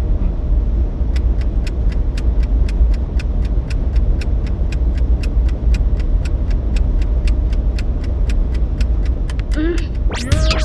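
Steady low rumble of a car, with a fast, even ticking of about four clicks a second starting about a second in. Near the end, a quick upward sweep of pitched tones cuts across it.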